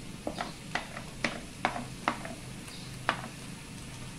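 Wooden spoon knocking and scraping against a tray and the wok's rim as chopped vegetables are pushed into the wok: a run of sharp taps, about seven in three seconds, over a low steady hum.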